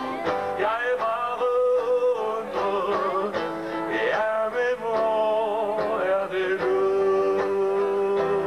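A man singing a song while playing an acoustic guitar, with a long held note in the second half.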